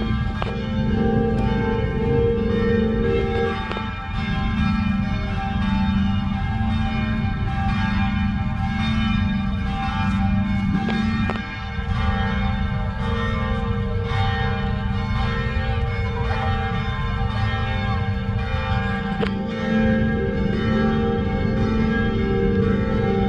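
Manila Cathedral's church bells ringing together in a continuous peal, many bells struck over one another. Two of the bells fall silent partway through and come back in together near the end.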